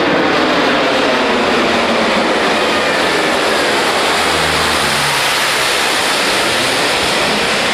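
Canadair CL-215/415 water bomber flying low overhead, its twin propeller engines running loud and steady, with the pitch of the drone falling as it passes.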